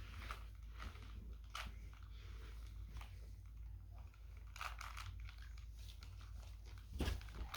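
Plastic Rubik's cube being turned by hand, its layers clicking and clacking in scattered short bursts, the loudest near the end.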